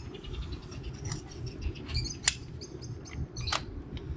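Parakeets chirping in quick, high, repeated calls, with a sharp louder call about two seconds in and another about three and a half seconds in, over a steady low background rumble.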